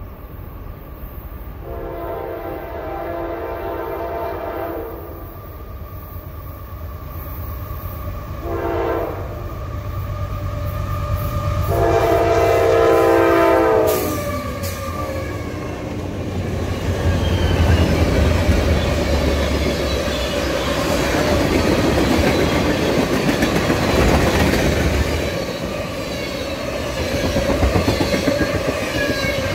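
Freight train diesel locomotive horn sounding three blasts, long, short, then a long, loudest one as the locomotives reach the crossing. The locomotives' engines then rumble past, followed by tank cars rolling by with steady wheel and rail noise.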